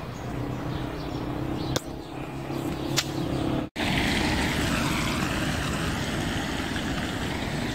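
Wet-street ambience: a steady low vehicle engine hum with two sharp clicks, then, after a brief dropout, a louder even hiss of road noise on wet asphalt.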